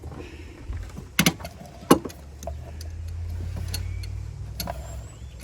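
Hand tools knocking and clicking against metal in a car's engine bay while working at a rusted heater-hose clamp: two sharp clicks close together, then a few fainter ticks, over a steady low rumble.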